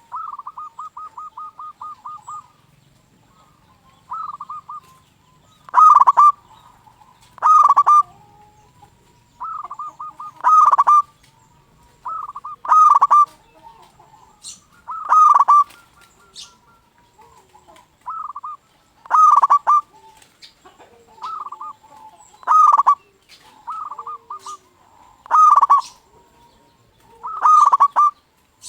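Zebra dove (perkutut), a local-type bird, singing its cooing song: short ringing phrases of quick coos repeated every one to two seconds, opening with a longer rapid trill.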